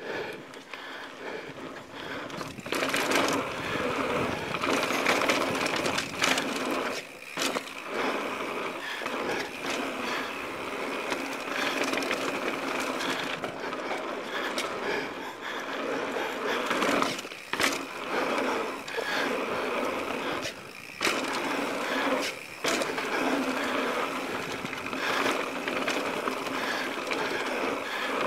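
Mountain bike rolling fast down a dirt trail: steady tyre noise on packed dirt with the clatter and knocks of the bike over bumps and rocks, dropping away briefly a few times.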